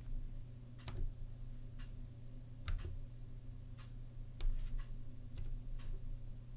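Slow, uneven typing on a Zilpzalp ergonomic mechanical keyboard with Kaihua Twilight low-profile switches: about ten scattered key clicks over a steady low hum.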